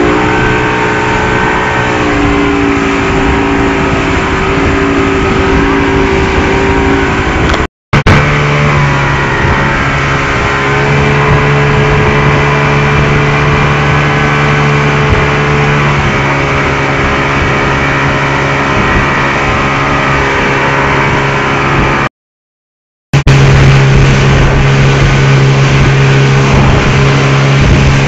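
Speedboat engine running at speed over the rush of wind and water, a loud steady drone whose pitch shifts a few times. The sound breaks off to silence twice for a moment.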